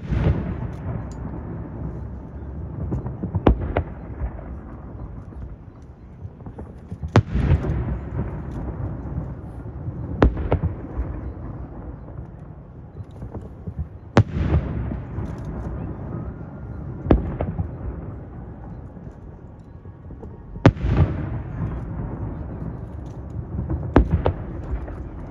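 Aerial firework shells bursting: about eight sharp bangs, one every three to four seconds, each trailing off in a long rumbling echo.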